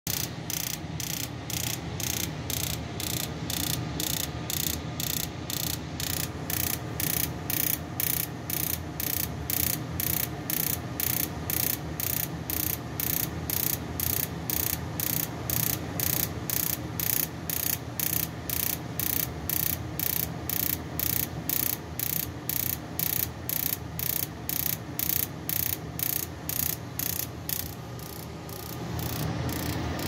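Gas furnace spark igniter clicking steadily, about two sparks a second, over a steady low hum, with the burners not lighting. Near the end the clicking breaks off and a louder low rush comes in as a burner catches.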